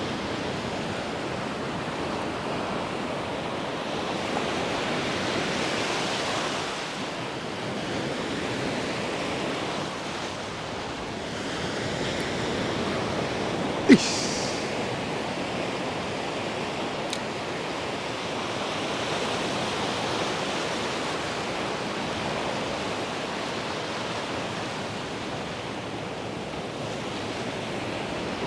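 Ocean surf washing onto a beach, a steady rush that swells and eases as waves come in, with a single sharp click about halfway through.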